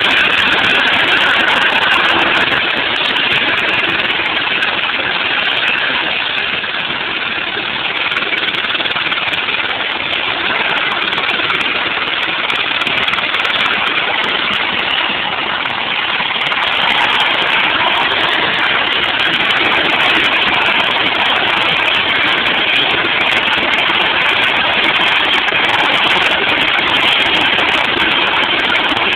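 Eurocopter AS350 helicopter running: a steady, loud turbine and rotor noise that eases a little for several seconds midway, then comes back up.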